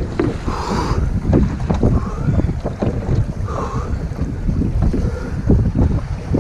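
Gusty wind buffeting the microphone, with water splashing and sloshing against the upturned hull of a capsized sailing dinghy.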